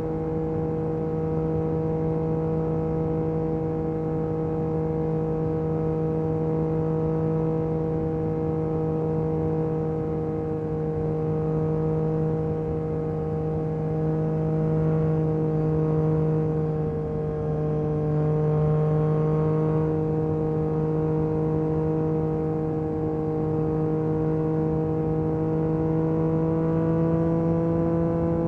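Yamaha MT-09 SP's 890 cc inline-three engine through an Akrapovic carbon exhaust, running at a steady speed with an even drone. The pitch sags slightly about two-thirds of the way through, then climbs back.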